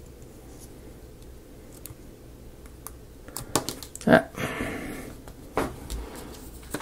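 Hands handling a thin plastic window sheet and its peeled-off protective backing: a few light clicks and taps after a quiet stretch, with a brief rustling slide about four seconds in.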